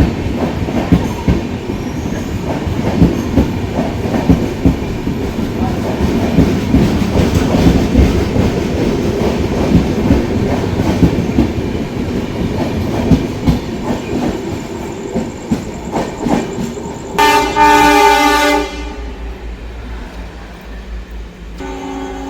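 Train passing close by: a heavy rumble with rapid clattering clicks of wheels over rail joints. About 17 seconds in, a loud locomotive horn blast lasts about a second and a half, after which the rumble dies away.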